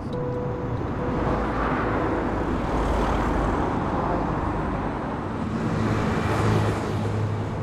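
Road traffic: cars driving past, a wash of tyre and engine noise that swells and fades as they go by, with a lower engine hum near the end.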